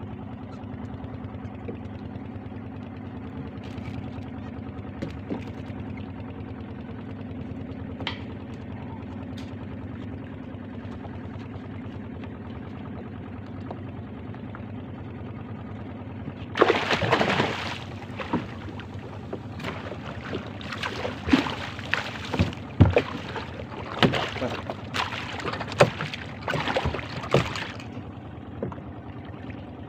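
A steady low hum, then from about halfway a hooked Spanish mackerel thrashing and splashing at the surface beside a wooden canoe as it is hauled in on a handline: a long run of loud, irregular splashes that stops shortly before the end.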